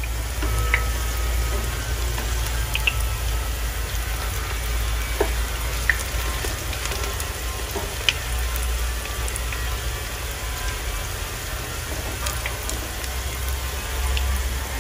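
Battered small-shrimp fritters sizzling in hot oil in a frying pan: a steady crackling hiss with scattered sharp pops, over a steady low rumble.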